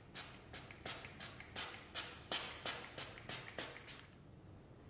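A run of sharp metallic clicks from handling tooling at the lathe, coming irregularly about three a second and stopping about four seconds in.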